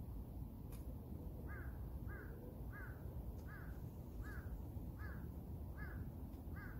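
A crow cawing over and over, short evenly spaced calls about one every two-thirds of a second, beginning about a second and a half in.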